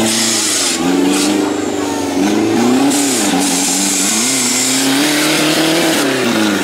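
Off-road buggy's engine revving hard under load as it climbs out of a gully, its pitch rising and falling repeatedly as the throttle is worked.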